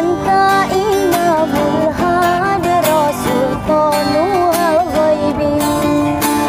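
A woman singing a sholawat (Islamic devotional song), her voice sliding and wavering around long held notes, over a strummed guitar accompaniment.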